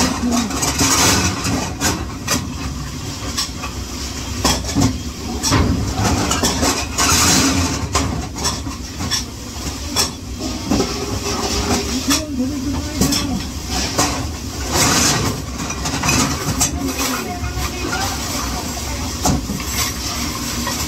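Dishes and utensils clattering with many sharp knocks, over a constant hiss and faint voices in the background.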